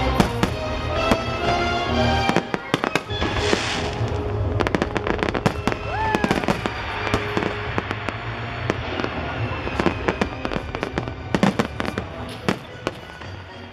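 Fireworks going off over show music: many sharp bangs and crackles of bursting shells, with a hissing rush about four seconds in and a dense run of crackling near the end.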